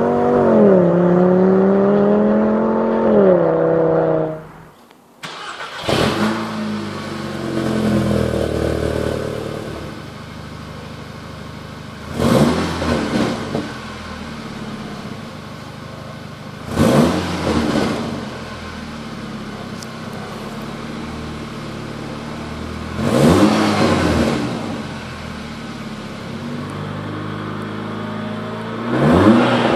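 A 2013 VW Golf 2.5's inline five-cylinder with a custom Magnaflow dual exhaust accelerates for about four seconds, its pitch rising, dropping at a gear change and rising again. After a short break, a VW Golf GTI's turbocharged four-cylinder with a Milltek turbo-back non-resonated exhaust cold-starts and settles into a steady fast idle. It is then blipped four times, several seconds apart, each rev rising and falling quickly.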